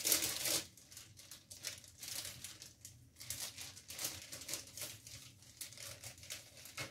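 Plastic zip-lock bags crinkling and rustling as they are handled and pulled open, in uneven rustles, loudest right at the start.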